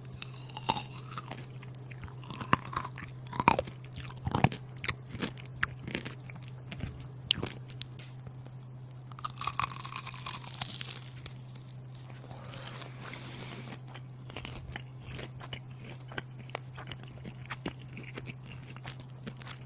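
Close-miked crunching and chewing of radish, with many sharp crisp crunches. A steady low electrical hum runs underneath.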